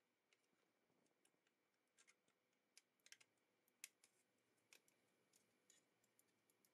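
Faint, scattered sharp clicks and taps of hard plastic as the opened shell and button pieces of a gaming mouse are handled and fitted back together, the loudest about four seconds in.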